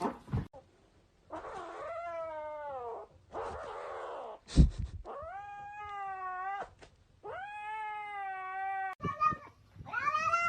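A cat yowling in a series of about five long, drawn-out wails that bend in pitch. A sharp knock comes about four and a half seconds in.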